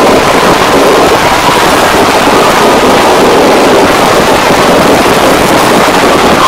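A fireworks display heard as a loud, unbroken din that overloads the recording, with no single bangs standing out.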